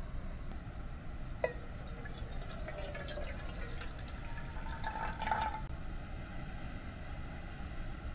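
Water poured from a metal sierra cup into a kettle, splashing and trickling for a few seconds before stopping, with a single sharp metallic clink about a second and a half in.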